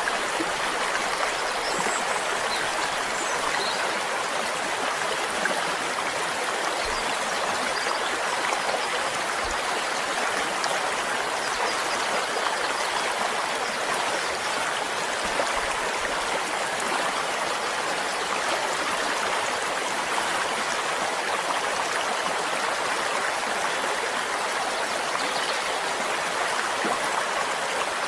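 A stream flowing with a steady, even rush of water that does not rise or fall.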